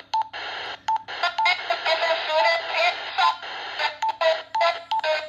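Wishouse two-way radio scanning through its weather channels: a short beep with each button press, bursts of radio static in between, and a voice coming through the radio's small speaker from about a second in to about three seconds.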